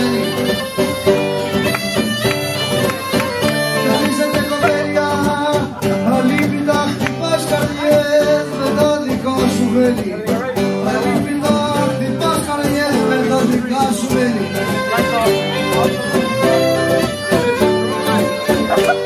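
Cretan askomandoura bagpipe playing a lively folk tune, accompanied by strummed acoustic guitar and a plucked lute.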